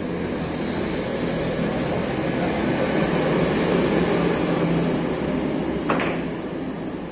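Carom billiards shot: one sharp click near the end as the cue tip strikes the cue ball and the balls knock together. Underneath runs a steady rumbling background noise that swells in the middle and eases off.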